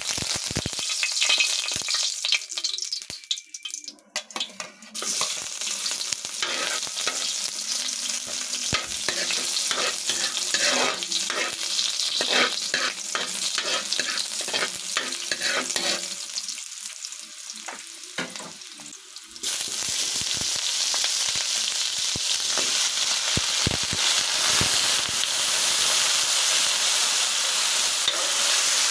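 Food frying in a hot pan and being stirred, the sizzle broken by many short scrapes and clicks of the utensil against the pan. About two-thirds of the way through, the sizzle turns louder and steadier, with less stirring.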